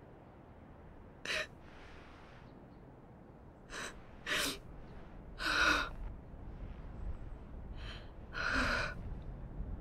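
A young woman crying quietly: about six short sobbing gasps and sniffs, the two longest with a slight catch in the voice, one near the middle and one near the end.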